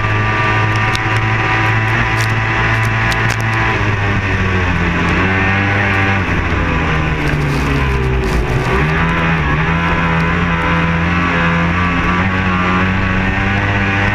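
Racing powerboat engine running hard at speed, heard onboard with the rush of water and wind. Its pitch dips briefly about eight seconds in, then climbs back.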